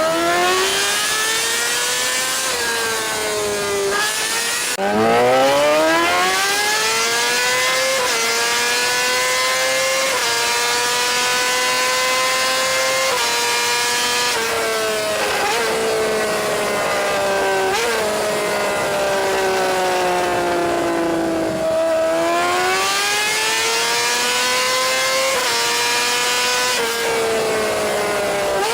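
Yamaha R6 supersport race bike's inline-four engine running hard through an aftermarket racing exhaust. The pitch climbs steeply and drops sharply at each upshift. Twice the revs fall away as it slows, then it pulls through the gears again.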